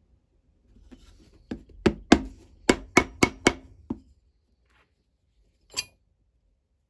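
A quick run of about eight sharp taps over two and a half seconds, then one more tap near the end.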